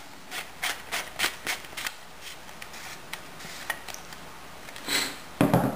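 Plastic end cap of a TL-122 flashlight being twisted back onto its threaded body by hand: a run of light clicks and ticks, several a second at first, then fewer and further apart.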